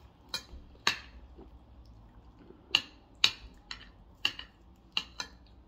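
A fork clicking against ceramic plates as food is picked up: about eight short, sharp clicks, spaced irregularly.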